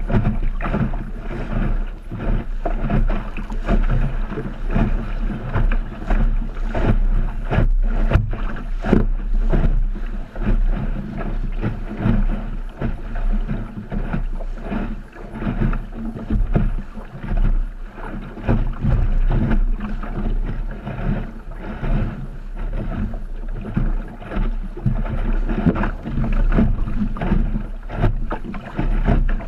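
Small sailboat's hull moving through choppy water: a steady rush of water with frequent irregular slaps and thumps of waves against the hull, and wind rumbling on the microphone.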